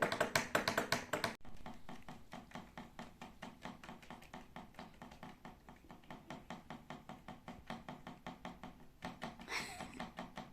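Lovebird calling for its chicks: a fast, even run of sharp chirps, about five a second, loud for the first second or so and then fainter, with one louder, harsher call near the end.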